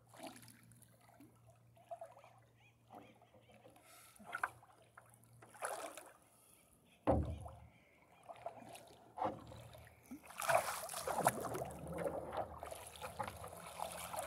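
Paddleboard paddle strokes: the blade dipping and pulling through the water with a swish and splash every second or two, growing denser and louder over the last few seconds. A single dull thump sounds about seven seconds in.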